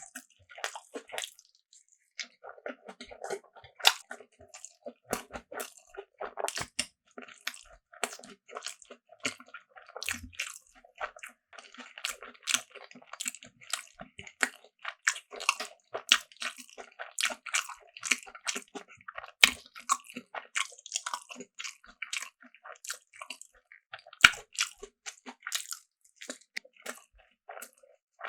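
Close-miked eating sounds: a person biting and chewing food with crisp crunching and rapid mouth clicks, a few sharper, louder bites standing out along the way.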